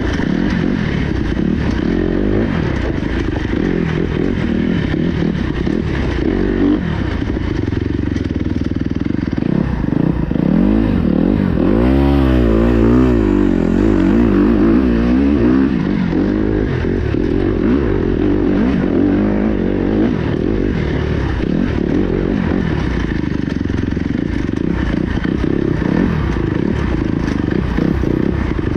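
Kawasaki KX250X dirt bike's four-stroke single-cylinder engine revving up and down continuously as it is ridden on a trail, with a quick run of rises and falls in revs about twelve seconds in.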